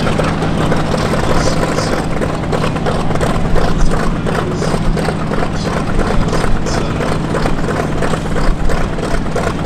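Steady aircraft engine drone with a constant low hum and a fast, even beat, from a helicopter flying overhead mixed with a light aircraft's propeller engine running close by.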